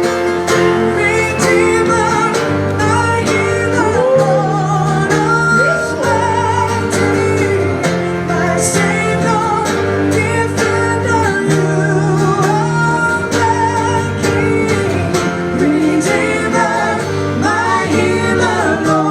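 Live congregational worship singing with a band: voices sing a praise song over guitar and bass.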